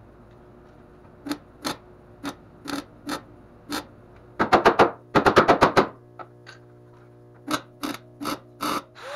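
MIG welder tacking a sheet-steel patch panel in short bursts, each under half a second. The tacks come singly at first, then about ten in quick succession near the middle, then a few single ones again.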